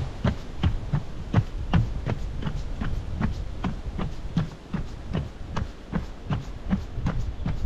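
A runner's footsteps striking a boardwalk at a steady pace, close to three footfalls a second, over a low steady rumble.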